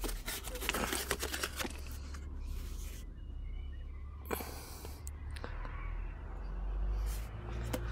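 Dust cover of a car's front shock absorber being worked off by gloved hands: scraping and rubbing of the tube against the shock body, with a single knock about four seconds in.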